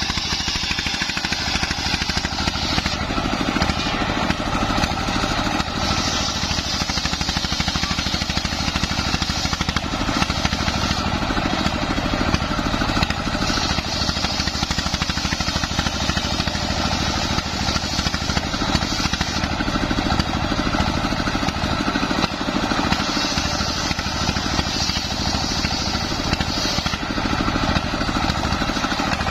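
Homemade table circular saw ripping waru (sea hibiscus) logs into rafters, its blade driven by a belted single-cylinder diesel engine running steadily. The blade's cutting hiss rises and falls in several stretches as the wood is fed through.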